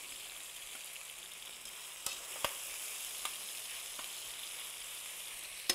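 Chicken pieces sizzling steadily as they brown in a stainless steel skillet. From about two seconds in come a few sharp clicks of metal tongs against the pan as the pieces are turned.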